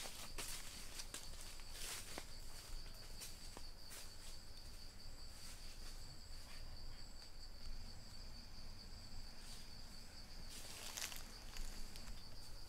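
Insects droning with one steady high-pitched tone, faint, with a few brief rustles about two seconds in and again near the end.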